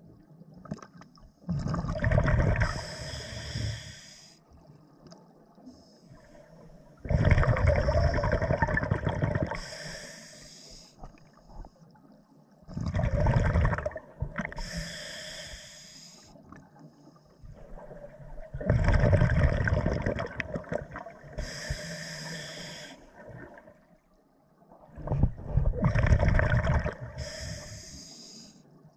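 Scuba diver breathing through a regulator underwater: five breaths about six seconds apart, each a loud rush of air and bubbles, with quieter bubbling between.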